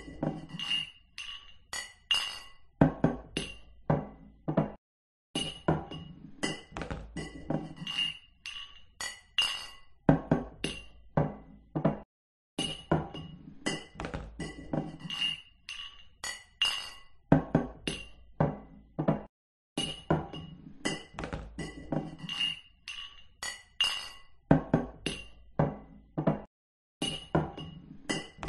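Beer glasses clinking together in toasts, many quick clinks with a bright ringing tone, mixed with some duller knocks. The clinking comes in stretches of a few seconds broken by short silent gaps.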